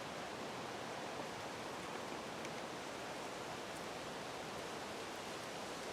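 Steady, even hiss with no distinct sounds in it: quiet woodland background and recorder noise.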